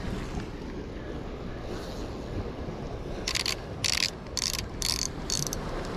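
Spinning reel being cranked in short rasping bursts, about two a second, starting about three seconds in, as the line is wound back from a snag among rocks. Steady wind and surf underneath.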